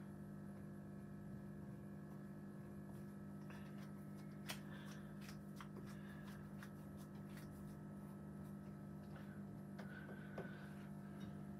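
Faint rustling and scattered light ticks of paint being worked on by hand, the two sharpest ticks about four and a half and ten seconds in, over a steady low hum.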